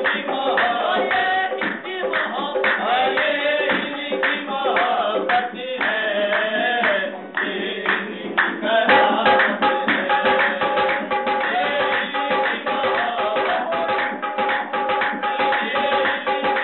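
Qawwali music: a harmonium playing held chords under a man's singing, driven by tabla and rhythmic hand-clapping. From about nine seconds in, the harmonium holds a long steady note.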